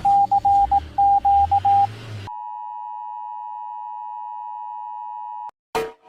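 Emergency alert audio. First come on-off beeps of uneven length on one tone, over a low hum and hiss. About two seconds in, the steady two-tone EAS attention signal (853 Hz and 960 Hz together) starts; it holds for about three seconds, then cuts off suddenly. Near the end a new, louder sound with sharp strikes begins.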